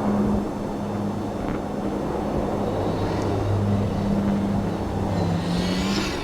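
Modified Daihatsu Mira L710S rally car running hard on a snow stage, its engine note holding steady and then dropping a little near the end, over a steady rush of tyre and snow noise.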